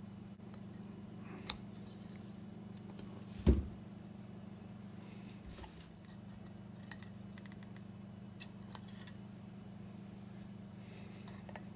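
Small metallic clicks and clinks of needle-nose pliers and a soldering iron against the pins of a tube base as the old wires are heated and pulled out, over a steady low hum. A louder thump comes about three and a half seconds in.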